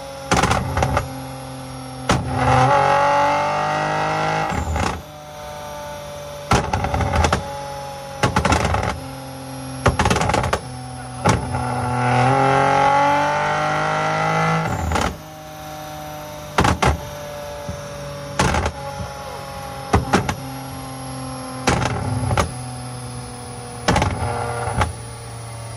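Infiniti Q60 engine through a Fast Intentions cat-back exhaust with 10-inch sport mufflers and full downpipes, idling between a series of short, sharp throttle blips. Twice, about two seconds in and again about twelve seconds in, it is held in a longer rev of around three seconds with the pitch rising.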